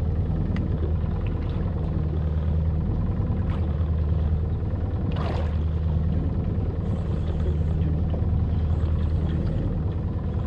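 Evinrude 115 outboard motor idling steadily, a low even hum, with a brief sharper sound about five seconds in.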